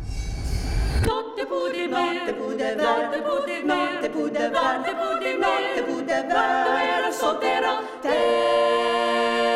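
Unaccompanied choir singing a slow, wavering melodic line, swelling into a held chord about eight seconds in. A low rumble sounds under the first second and stops abruptly.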